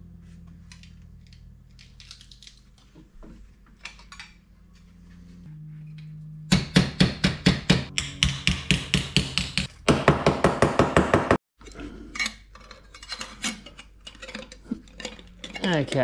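Hammer tapping an aluminium sheet clamped in a bench vise, in a rapid run of about six sharp taps a second, then a faster burst that cuts off suddenly. Lighter metallic clinks and handling clicks come before and after.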